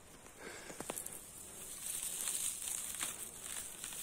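Footsteps through forest undergrowth with dry grass and vegetation rustling and brushing close past, and a few light clicks of twigs.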